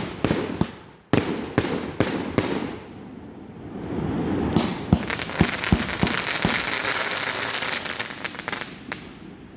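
Fireworks display: a quick string of sharp shell bursts in the first couple of seconds, then from about four and a half seconds a dense crackling shower with a few more bangs mixed in, dying away near the end.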